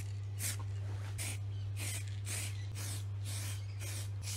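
Aerosol spray-paint can spraying blue paint in short bursts, about two a second, each a brief hiss. A steady low hum runs underneath.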